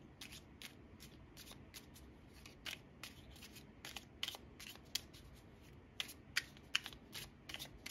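A deck of tarot cards being shuffled by hand: a run of short, irregular card snaps, a few louder ones near the end.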